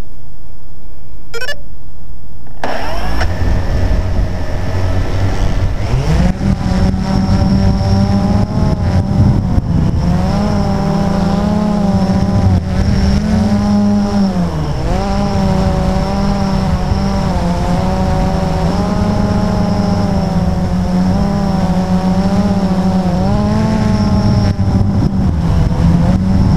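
Multirotor drone's electric motors and propellers spinning up at takeoff about three seconds in, then a loud steady buzzing whine that rises and dips in pitch as the throttle changes in flight.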